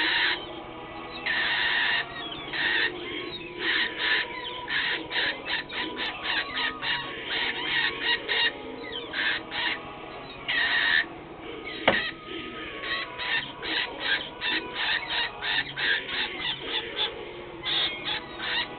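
Cockatiel calling in a quick run of short, harsh chirps and squawks, a few longer raspy bursts among them, with a single sharp click about twelve seconds in.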